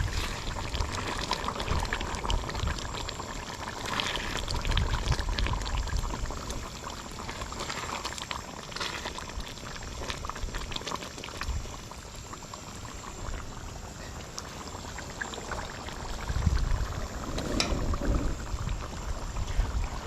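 Thick chicken curry bubbling and sputtering in the pot, a steady crackling simmer.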